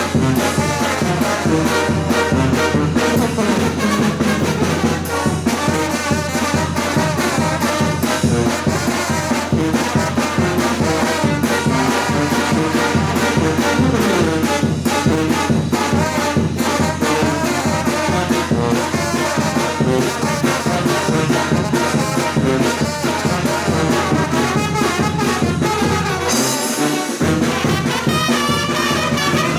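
Mexican brass band (banda) playing, with trombones and trumpets over a steady beat. The low end cuts out for a moment near the end, then the band plays on.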